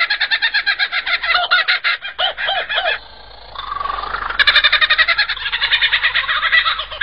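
Superb lyrebird singing, mimicking the calls of other bird species in fast runs of repeated notes. A brief lull with a lower whistle comes about three seconds in, then the rapid notes resume.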